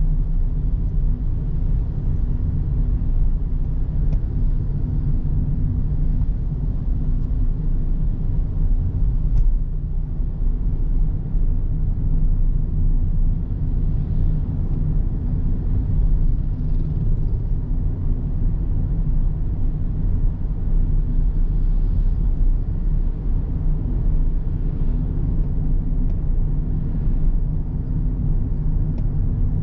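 Car driving at a steady pace: a continuous low rumble of engine and road noise.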